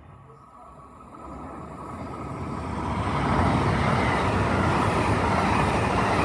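A train approaching and running past: a rushing noise builds over about two seconds, then holds steady and loud.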